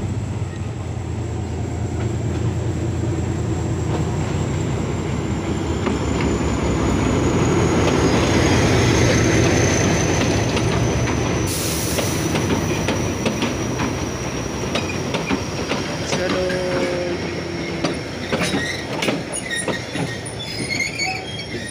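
Narrow-gauge passenger train pulling in along the track, wheels running and clattering over the rails with a thin high squeal that slowly drops in pitch; loudest about eight to ten seconds in.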